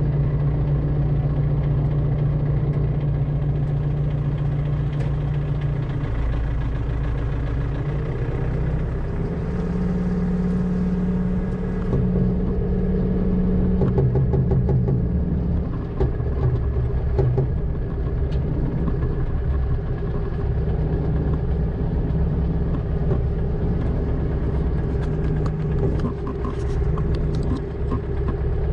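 Engine of a large farm machine running steadily, its pitch shifting a few times, with light rattling clicks in the middle stretch.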